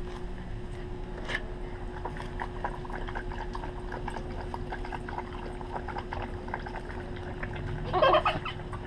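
A dog lapping water from a stainless steel bowl: a quick run of small wet laps. Near the end there is a short, louder burst.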